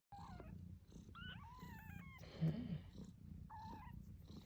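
Mother cat purring steadily while her newborn kittens mew: a few thin, high mews falling in pitch about a second in, another shortly before the end, and a brief louder low sound midway.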